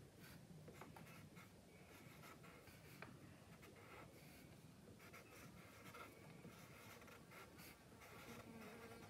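Black felt-tip marker writing on paper: faint strokes, short and irregular, one after another.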